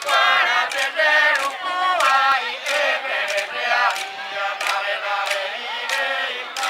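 A group of men and women chanting a traditional Papua New Guinean dance song together, with sharp percussive beats recurring through the singing.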